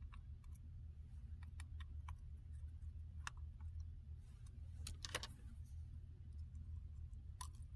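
Faint, scattered small clicks and taps of fingers and metal tweezers handling parts at the display cable connector inside an opened MacBook Pro, over a steady low hum.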